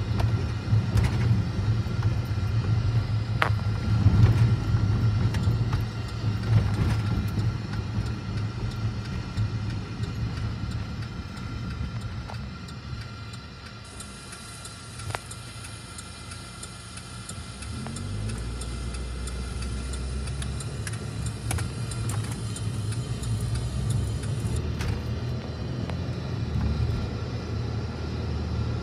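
Low road rumble of a car heard from inside the cabin while driving. It quiets about halfway through while the car waits at a red light, then the engine's pitch rises briefly as the car pulls away and the rumble picks up again.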